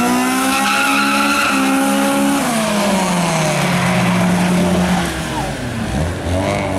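Car engine revved hard with its tyres squealing. The revs hold high, fall and settle lower about two and a half seconds in, dip near the end, then climb again.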